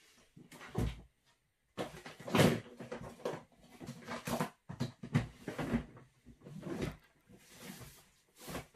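Rummaging: irregular knocks, bumps and rustles of objects being moved and handled, with a few louder thumps.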